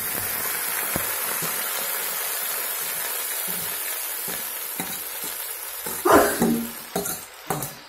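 Water spinach dropped into hot oil in a wok: a loud steady sizzle that slowly eases off over several seconds. A few sharp knocks come near the end, the loudest about six seconds in.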